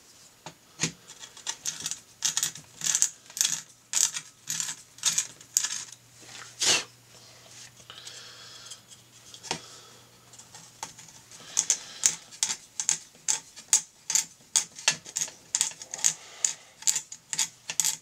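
An X-Acto hobby knife scraping at the edges of holes in a fiberglass circuit board in quick, short, irregular strokes, mixed with small clicks as the board is handled and tried against the plastic faceplate. The scraping pauses briefly about halfway through.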